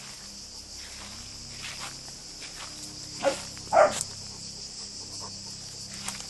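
A Weimaraner gives two short barks about half a second apart, over a steady high buzz of insects.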